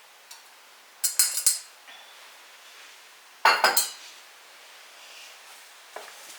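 Small hard objects clattering and clinking together in two short bursts, the second about two seconds after the first, with a faint click near the end.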